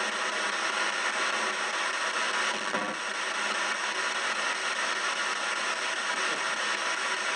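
Ghost box sweeping through radio stations, giving a steady hiss of static, with a brief pitched snatch of sound about two and a half seconds in.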